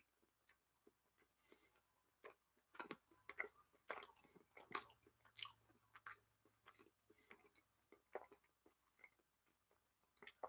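Faint chewing of a mouthful of cheese: soft, irregular mouth clicks and smacks. They come thickest for a few seconds after a quiet start, then thin out.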